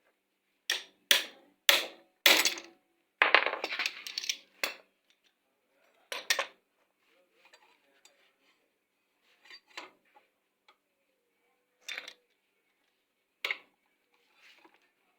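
Metal tools and parts being handled: four sharp clanks in quick succession, a short rattling cluster, then a few scattered single knocks.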